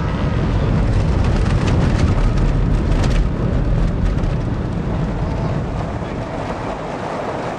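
Car driving on a gravel road, heard from inside the cabin: a steady loud rumble of tyres and body over the gravel with scattered clicks, easing slightly near the end.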